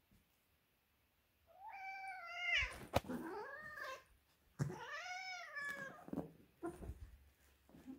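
Domestic cat giving two long, drawn-out meows, each rising and then falling in pitch, in protest as an alcohol wipe is dabbed on his open abscess wound. A sharp click comes between the two calls.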